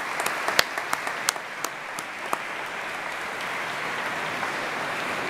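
Audience applauding, with a few sharp, close claps standing out over the first couple of seconds before it settles into steady applause.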